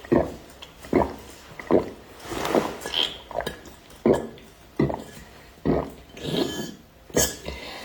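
Close-miked gulping: a drink swallowed in a steady run of about ten loud gulps, a little under one a second.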